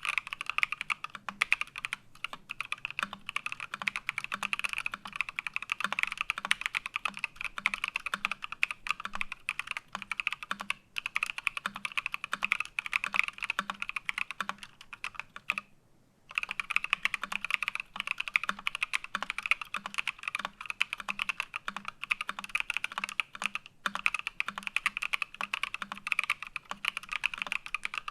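Steady, fast typing on a PC Think 6.5 mechanical keyboard with lubed Paco switches and PBT keycaps, with one short pause a little past halfway.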